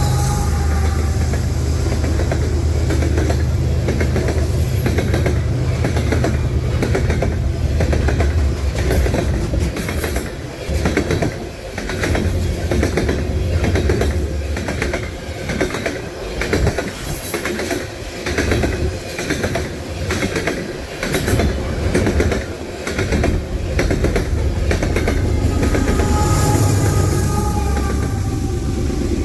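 Freight train passing: a GE diesel locomotive's horn dies away in the first second over a heavy engine rumble, then potash hopper cars roll by with a steady, rhythmic clickety-clack of wheels over rail joints. A locomotive's low diesel rumble returns near the end.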